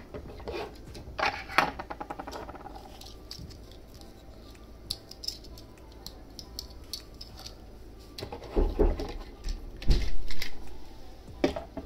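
A plastic snap-together toy robot being handled and turned on a tabletop: light clicks and taps of plastic parts, then a few heavier thumps near the end as it is set down on the table.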